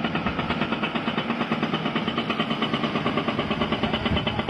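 Heavy diesel engine of quarry machinery running under load with a rapid, even pulsing.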